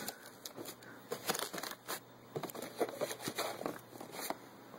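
Plastic wrapping and cardboard packing being handled by hand, crinkling and scraping in a run of short irregular crackles.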